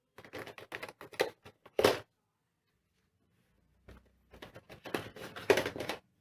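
Hard plastic Hot Wheels track parts clicking, clattering and scraping against each other and the cardboard box as they are handled. The sound comes in two spells of quick knocks and rustles with a pause of about two seconds between them, the sharpest knocks near the end of each spell.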